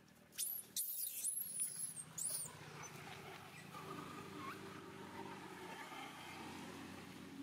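Young long-tailed macaque giving a run of shrill, arching squeals in the first two seconds, followed by steady rustling through grass and dry leaves with a few faint calls.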